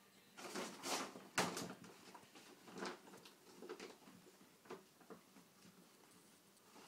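Plastic shopping bag crinkling and rustling in bursts as a cat pounces on it and wrestles inside it, loudest about a second and a half in, then smaller rustles trailing off.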